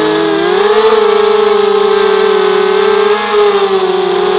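Mini H4 250 quadcopter's four RCTimer 2300 kV brushless motors spinning 5x3 propellers, heard from the onboard camera: a steady multi-tone whine whose pitches drift apart and together as the throttle is worked, rising briefly about a second in.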